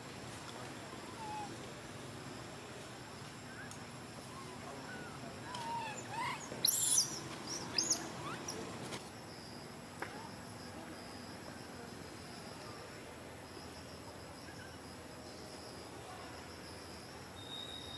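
A few short, shrill squeals from a young long-tailed macaque, clustered about six to eight seconds in, over a steady high insect drone.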